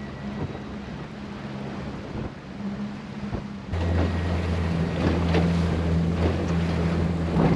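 Small fishing boat's outboard motor running under way, with wind and water noise. About four seconds in it gets louder, and water slaps and splashes against the hull.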